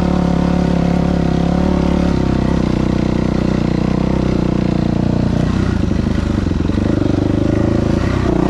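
2000 Yamaha YZ426F four-stroke single-cylinder dirt bike engine running under way on a ride, its note changing about five seconds in.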